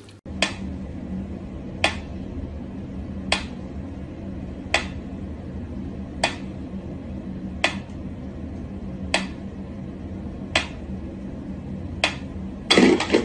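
Mechanical pendulum metronome ticking slowly and evenly, about one tick every one and a half seconds, over a steady low hum. A louder clatter comes near the end.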